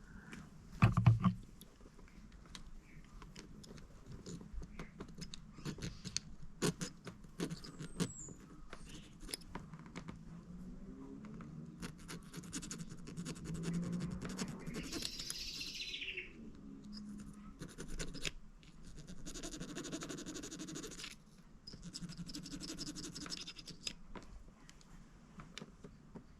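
Small parts of a car wiper switch being handled and worked on: scattered clicks, taps and scrapes, with a loud knock about a second in and two longer rasping stretches near the end. A bird calls now and then in the background.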